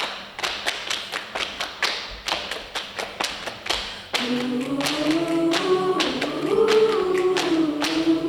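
A cappella choir: a quick run of sharp percussive taps, about four or five a second, then about four seconds in the voices come in together on held "ooh" chords that slowly shift in pitch, with the taps continuing underneath.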